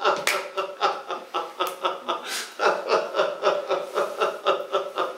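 A man laughing, a long run of quick chuckles with no words.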